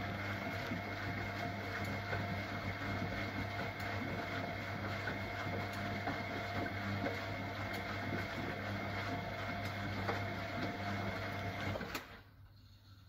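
Siemens Siwamat Perfecta SL washing machine running with a steady mechanical hum. The hum cuts off suddenly about twelve seconds in, leaving the machine much quieter.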